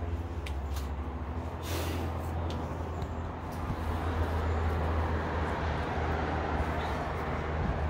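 Road traffic: a steady low engine drone from heavy vehicles with tyre and road noise, swelling a little about four seconds in.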